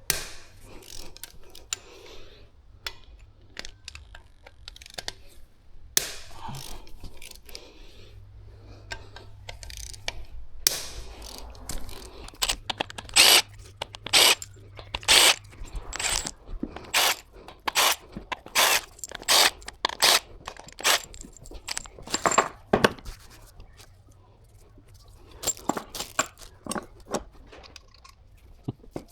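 Hand tools working on bare engine metal: a run of sharp metallic clicks and knocks, coming about one or two a second through the middle, with some scraping between, as fasteners on the oil pump and its drive are undone.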